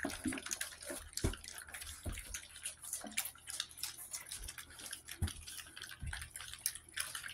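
Several four-week-old puppies lapping and smacking at wet mush in a foil pan: many small, irregular wet clicks and slurps.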